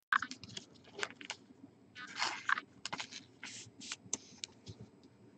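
Trading cards being handled: a string of short scrapes and clicks as cards slide and flick against each other, with a longer rustle about two seconds in.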